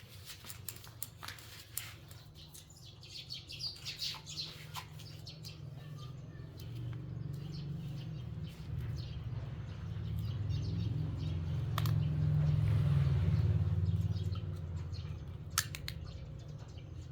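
Birds chirping in the background, with scattered small clicks and taps. Under them a low hum swells from about seven seconds in, is loudest a few seconds later, then fades.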